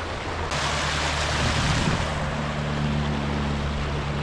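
A steady low engine hum, with a rushing hiss that sets in suddenly about half a second in and fades over the next couple of seconds.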